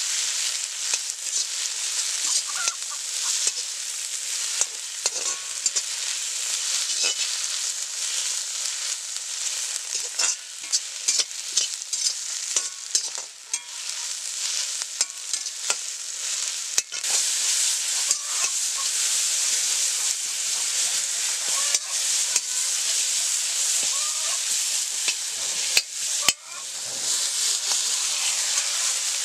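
Curry ingredients sizzling in a hot iron wok while a metal spatula stirs and scrapes them, with many sharp clicks and scrapes of metal on the pan. Near the end water is poured in and the frying turns to a steady hiss.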